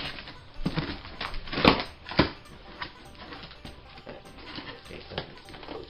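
Cardboard box being opened by hand: packing tape tearing and peeling off, cardboard flaps scraping and crackling, with two sharper cracks about two seconds in.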